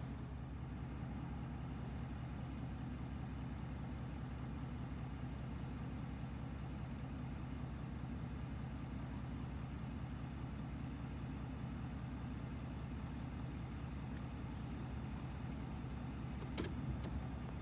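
Vehicle engine idling: a steady low hum that holds unchanged throughout, with a short click near the end.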